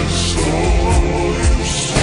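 Estonian pop song played slowed down, with a steady low beat.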